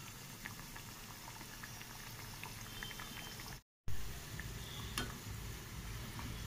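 Poddo luchi deep-frying in moderately hot oil in an iron kadai: a steady bubbling sizzle with small crackling pops. The sound breaks off for a moment just before four seconds in, then carries on, with one light click about five seconds in.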